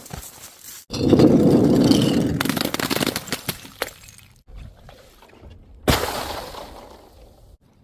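Dropped objects striking hard ground: a low, rumbling clatter lasting about a second and a half, then one sharp bang near the end, with no clear glass shattering.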